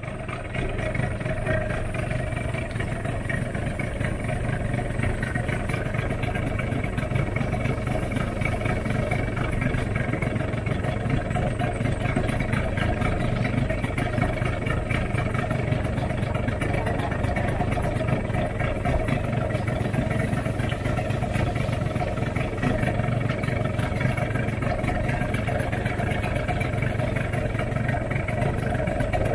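A small wooden boat's engine running steadily, without changing speed.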